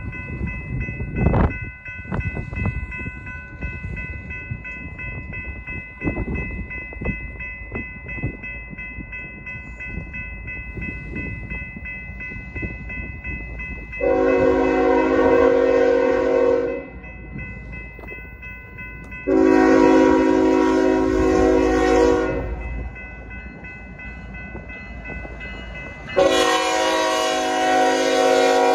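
Norfolk Southern diesel freight locomotive's multi-chime horn blowing three long blasts, about fourteen, nineteen and twenty-six seconds in, as the train approaches. Underneath, a grade-crossing warning bell rings steadily over the low rumble of the oncoming train.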